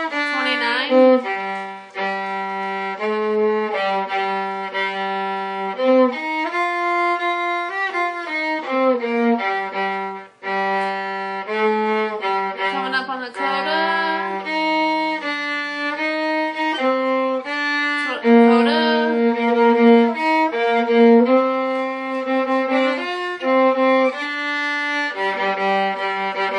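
Viola playing a quick melody note by note, with a brief break about ten seconds in.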